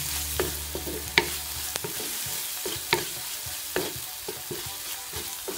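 Shallots, garlic, ginger and masala paste sizzling in coconut oil in an earthenware pot, stirred with a wooden spatula that knocks and scrapes against the pot every second or so. The masala is being sautéed until its raw smell goes.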